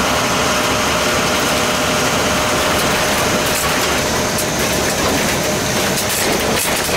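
Vehicle engine and wet-road tyre noise heard from inside the cab while driving: a steady drone with a faint steady whine.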